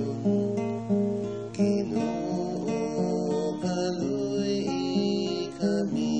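Acoustic guitar strumming and picking chords as the accompaniment to a slow liturgical hymn.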